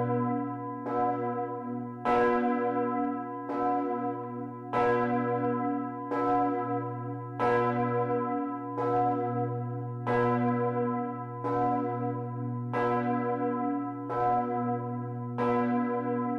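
A 2.3-ton cast-steel Bochumer Verein bourdon bell swinging full circle under hand ringing. Its clapper strikes about every 1.3 seconds, alternate strokes louder, and each stroke rings on over a steady deep hum.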